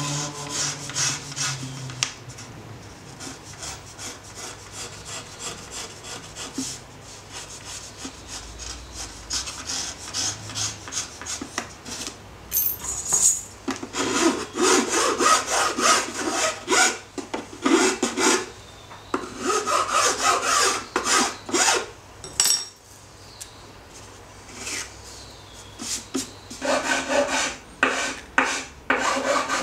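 Hand tool worked back and forth on the wood of a stringed instrument in a luthier's workshop: runs of quick rasping strokes, a louder stretch in the middle and another near the end.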